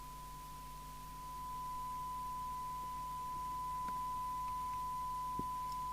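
A steady 1 kHz test tone, the signal generator's test modulation heard through a CB radio receiver during receive alignment. It gets louder about a second and a half in, over a faint mains hum.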